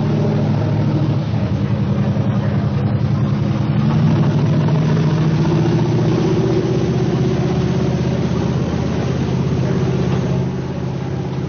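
Large engine running steadily: a loud, low, pulsing drone whose pitch rises slightly about four to six seconds in.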